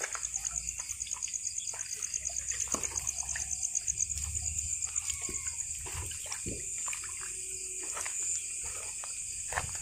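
Crickets trilling steadily in a fast, pulsing high chirr, with scattered light knocks and rustles throughout.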